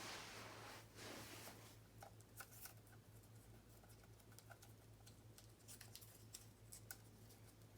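Near silence: room tone with a steady low hum, a brief soft swish in the first second, and faint scattered clicks.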